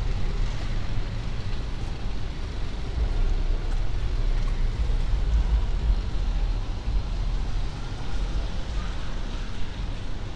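Steady city street traffic noise, mostly a low rumble with no distinct events.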